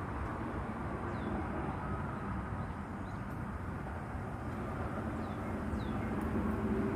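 Steady low outdoor rumble with a faint, even hum under it, and a few faint, short high bird chirps.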